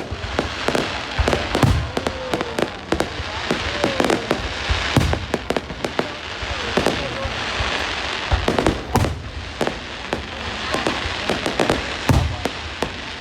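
Aerial fireworks going off continuously: many sharp bangs at irregular intervals, several a second at times, over a steady crackling hiss.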